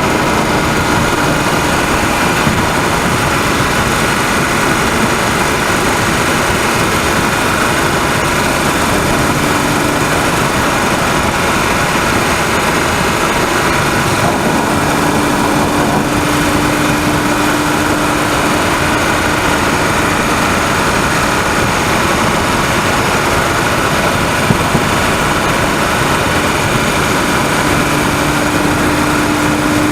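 BMW 130i's 3.0-litre straight-six engine running at speed, heard from inside the engine bay, its tone holding nearly level throughout. The owner is recording it to trace a rattling, ticking noise of unknown cause that is absent at idle.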